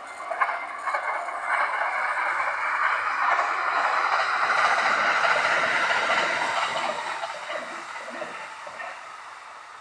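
Kintetsu Hinotori limited express electric train passing on the Kintetsu Nagoya Line, with a few sharp clacks as it arrives. The wheel and rail noise builds to a peak midway, then fades as the train moves away.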